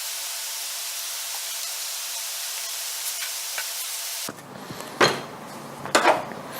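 A machine tool running steadily with a hiss and a faint low hum, which cuts off suddenly about four seconds in. Two sharp metal clinks follow, about a second apart.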